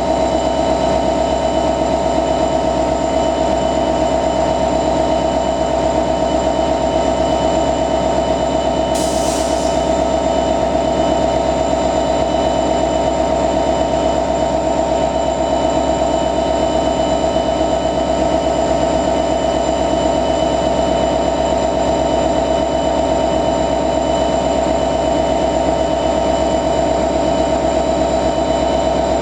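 EMD 16-710 G3C-U2 two-stroke V16 diesel of a Vossloh Euro 4000 locomotive idling steadily, with a constant whine over the engine note. A short hiss comes about nine seconds in.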